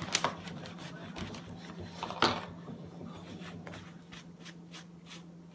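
Hands working homemade slime: a sharp click near the start and a louder one about two seconds in, then a run of faint small clicks.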